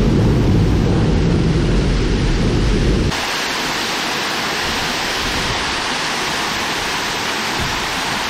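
Steady rush of water at a dam. A heavy low rumble runs under it for about the first three seconds, then cuts off suddenly, leaving an even hiss.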